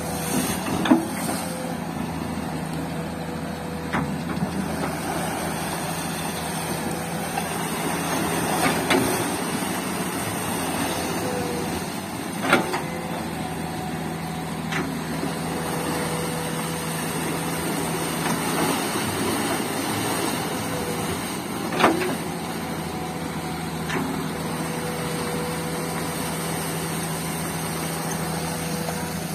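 Komatsu crawler excavator's diesel engine running steadily under digging load, with a steady whine, as the bucket works in the river water. A few sharp knocks stand out, the loudest about halfway through and again about three-quarters through.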